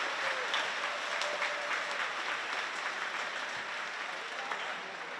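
Audience applauding, the clapping slowly dying down toward the end.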